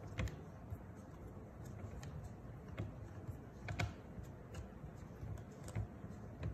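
Scattered faint clicks and ticks as a round-headed metal screw is turned by hand on the side of a wooden Erica folding loom. The screw is being turned all the way in so that the loom locks open and cannot fold.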